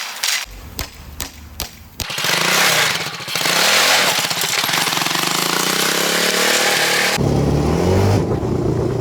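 ATV engine running and revving, its pitch rising and falling under heavy wind rush on the microphone, after a few sharp clicks in the first two seconds; near the end it drops to a lower steady hum.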